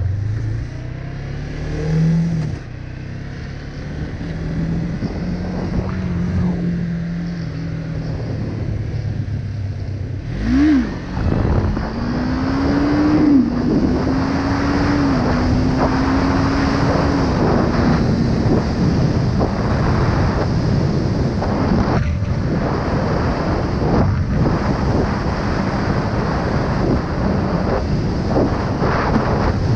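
Kawasaki ER-5's parallel-twin engine idling with a short blip of the throttle. About ten seconds in it revs sharply, then pulls away, its pitch climbing and dropping back at each gear change. Wind noise rises as the bike gathers speed.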